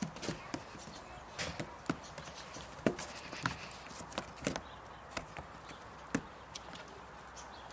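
Goat kids' hooves knocking and scuffing on the wooden plank and felt-covered roof of a small playhouse as they jump and shove each other, in irregular taps and thuds.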